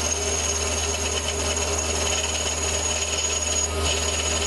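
Small metal lathe running, its tool turning down a brass rod held in a collet: a steady motor hum under the cutting noise, with a thin high whine that breaks off briefly near the end.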